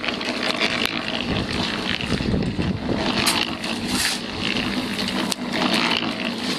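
Concrete mixer running steadily, its drum turning the cinder-block mix of slag, ash, sand and cement. A steel shovel scrapes and digs into a pile of slag a few times.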